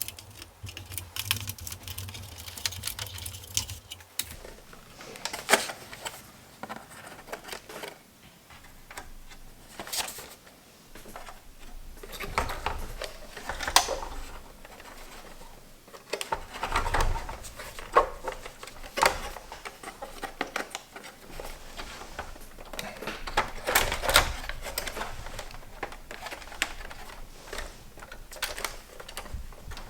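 Irregular clicks, taps and light knocks of a PS3 Slim's parts being handled during disassembly or reassembly, with a low hum that stops about four seconds in.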